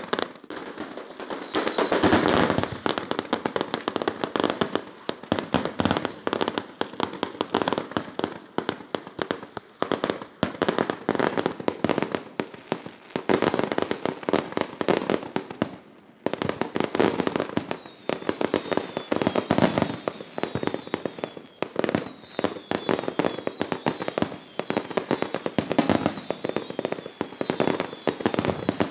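Fireworks display: a dense, continuous run of bangs and crackling, with a short lull about 16 seconds in. Short falling whistles come through now and then, most often in the second half.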